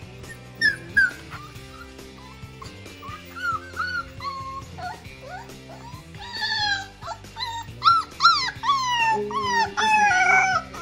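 Husky puppy yipping and whining in short high calls that drop in pitch, building into louder, quicker howls in the second half. Background music plays underneath.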